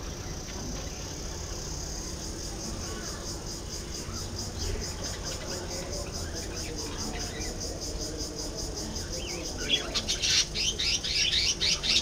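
Budgerigars chattering, breaking into a loud run of rapid, sharp chirps near the end. A steady, high, rapidly pulsing trill runs underneath.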